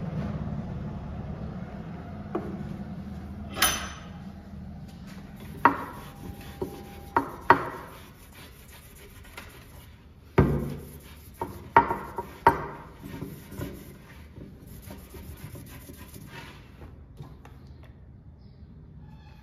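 A series of irregular knocks and taps on wood, about eight in all, with rubbing and handling sounds between them. A low hum fades out in the first few seconds.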